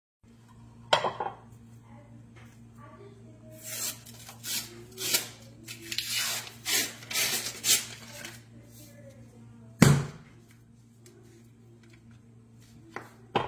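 A metal muffin tin clanks down onto a wooden cutting board, then several short hisses of aerosol cooking spray go over the upturned tin. Just before ten seconds a loud sharp pop as a Pillsbury biscuit tube bursts open, over a steady low hum.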